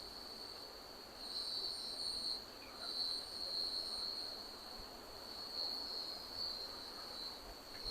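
Crickets trilling steadily, one high continuous note with a fainter, higher one above it, swelling and fading a little.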